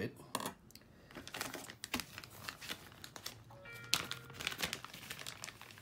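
A clear plastic packaging bag crinkling as it is handled: a dense, irregular run of crackles and rustles.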